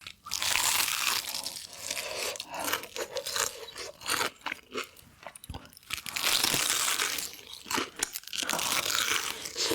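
Close-up eating of chicken: crisp crunching bites and chewing, loudest in two long stretches near the start and about six seconds in, with smaller crackles and mouth clicks between.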